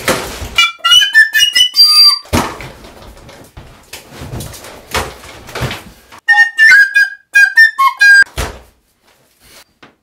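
Plastic recorder played in two short runs of quick, high, wavering notes, about a second in and again after six seconds. A thump comes at the very start, and a rough rushing noise fills the gap between the two runs.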